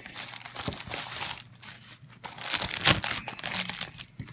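Plastic packaging bag crinkling and rustling in the hands as a media box is slid out of it. The rustle is irregular, with its loudest crinkle about three seconds in.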